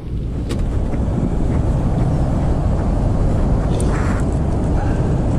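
Wind buffeting the camera microphone: a steady low rumble. A few light clicks come about half a second in, and a brief rustle comes about four seconds in.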